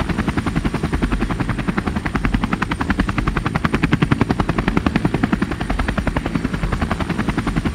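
A machine's steady, rapid chopping pulse, about ten beats a second, even in speed and strength throughout.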